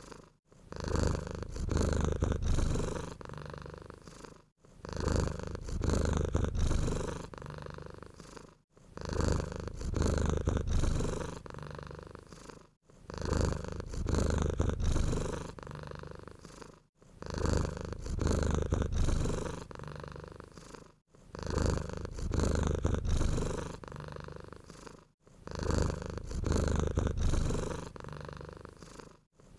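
Domestic cat purring steadily, in even cycles about every four seconds: a louder stretch, then a quieter one, then a brief pause before the next.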